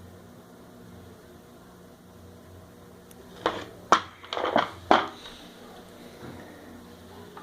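A quick run of about five sharp knocks and clatter of hard parts being handled, about halfway through, over a faint steady low hum.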